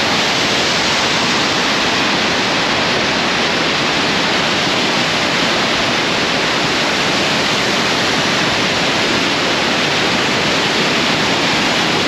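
Velo de Novia waterfall pouring in full rainy-season flow, a loud, steady rush of water heard close up in its spray.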